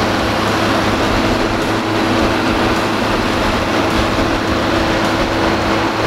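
A large John Deere diesel tractor running steadily with its round baler hitched, a loud even engine noise with a steady hum through it.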